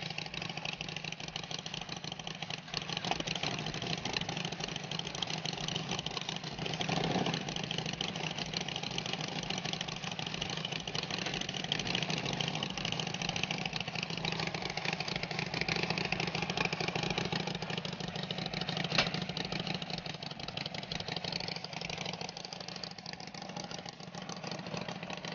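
Harley-Davidson Sportster's air-cooled 45-degree V-twin idling steadily.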